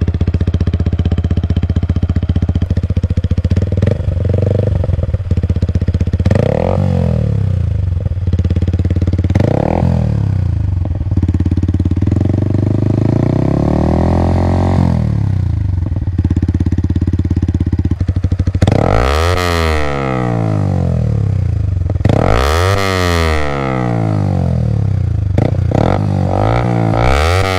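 Yamaha XSR 155's single-cylinder engine through an SC Project CRT aftermarket exhaust, idling and blipped repeatedly. It gives several short revs, then one slower, longer climb, and near the end three sharper, higher revs that each drop quickly back to idle.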